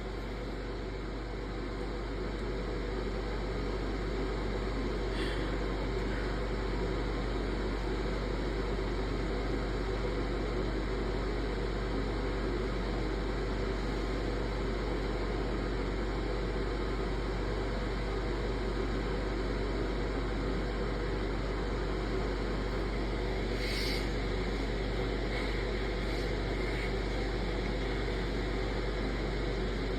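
Steady low hum and hiss of background noise, with a few faint short clicks, most noticeable about three quarters of the way through.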